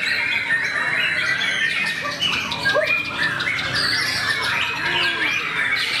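White-rumped shama (murai batu) singing among other caged songbirds: a dense, unbroken stream of overlapping whistles, chirps and quick rising and falling notes.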